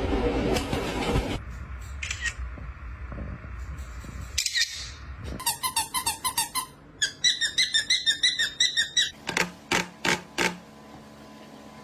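A parrot mimicking sound effects: a whistle that slides up and back down, then two runs of rapid, evenly repeated high chirping beeps, then a handful of sharp clicks like a camera shutter.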